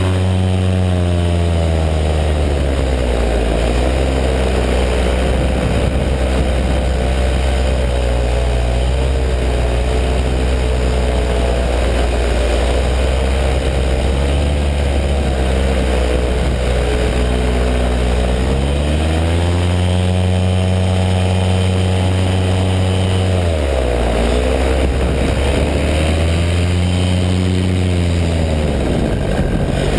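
Paramotor engine and propeller running in flight, the engine pitch falling and rising several times as the throttle is eased off and opened again.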